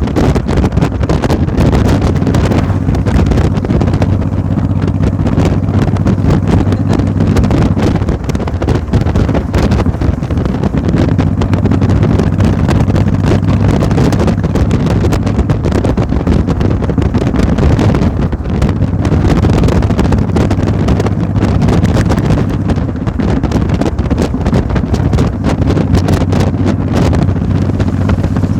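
A steady engine drone with wind buffeting the microphone throughout.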